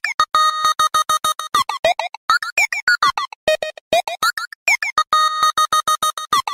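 Background electronic music: a fast run of short, clipped pitched notes with brief silences between them.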